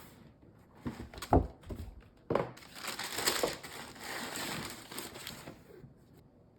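Sneaker box being handled and opened, with a couple of knocks from the cardboard, the first the loudest, followed by a few seconds of paper crinkling and rustling.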